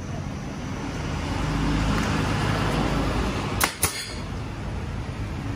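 Pneumatic upholstery staple gun firing, two sharp shots in quick succession about three and a half seconds in and another pair at the very end, stapling a vinyl cover onto a scooter seat base. Under it is a steady background rumble that swells and fades.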